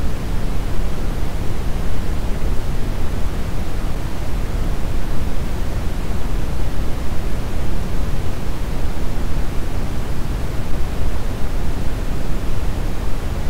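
Steady brown noise: an even, deep rushing hiss, strongest in the low end, with no change or events.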